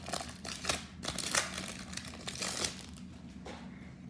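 A trading-card pack wrapper crinkling and cards rustling in the hands as a pack of football cards is handled and opened, in a few short bursts over the first three seconds, then quieter.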